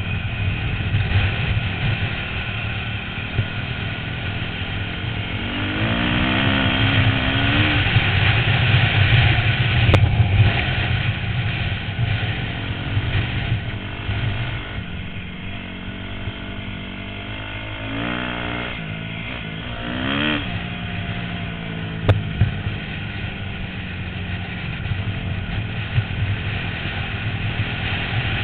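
A 250 dirt bike engine running hard, heard from the rider's helmet, its pitch climbing as it revs up about a quarter of the way in and again in several quick rises and drops past the middle, like gear shifts.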